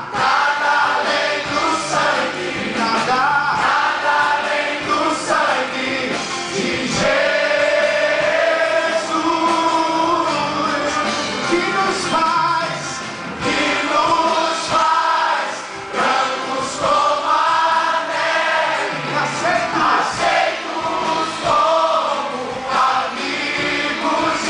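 Large mixed choir of men and women singing a Portuguese-language gospel worship song.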